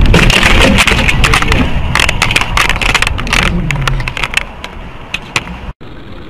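Car collision heard from inside the vehicle: loud clattering and repeated knocks for about four seconds that die away, with a falling engine note. Near the end it cuts abruptly to a steady hum of engine and road noise.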